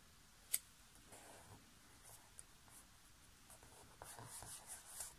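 Faint paper handling: one sharp tap about half a second in, then soft rubbing and rustling near the end as a small paper label is pressed down onto a card with the hand.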